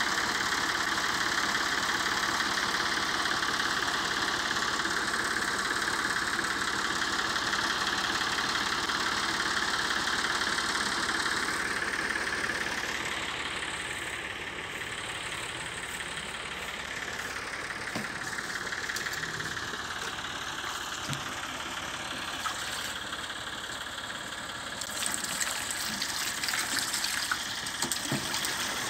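Small stationary diesel engine running steadily. After about twelve seconds it drops to a quieter background, and near the end water splashes several times as a plastic can is dipped and moved in a well.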